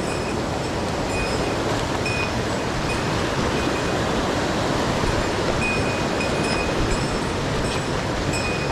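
Mountain-stream water rushing steadily over rocks, a continuous even roar, with brief faint high-pitched tones now and then.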